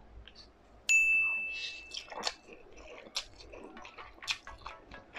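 A single bright ding about a second in, ringing and fading over a second or so, followed by soft chewing and slurping of a mouthful of instant fried noodles.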